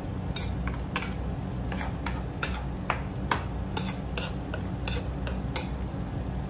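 Metal ladle stirring a saucy stew in a wok, clinking and scraping against the pan about two to three times a second until near the end, over a steady low hum.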